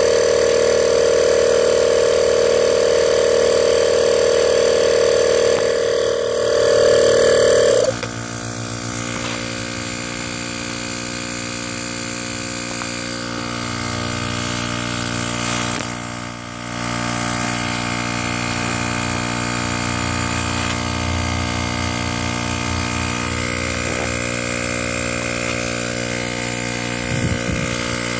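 12-volt piston air compressor running steadily under load as it inflates a bag through its hose. About eight seconds in its sound changes abruptly to a different, lower hum, which dips briefly around the middle and then runs on steadily.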